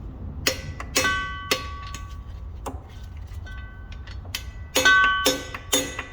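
Sharp metal-on-metal knocks from a tool working a stubborn hex-head bolt on the driveshaft coupler, about eight of them at irregular spacing, each with a short ringing tone. The loudest come near the end.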